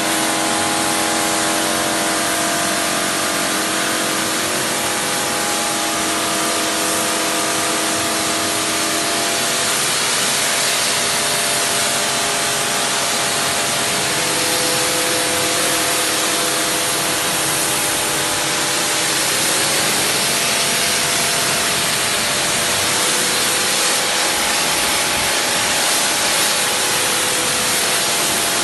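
Kärcher home pressure washer running, its jet of water blasting onto stone paving slabs with a steady loud hiss over the pump's steady hum.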